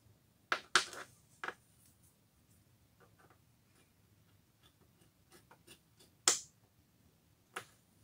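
Sharp knocks and clicks of a steel flange nut and an old steel vernier caliper being handled on a wooden tabletop: a quick cluster of knocks early, faint ticks and scrapes in the middle, then a loud knock near six seconds and another near the end.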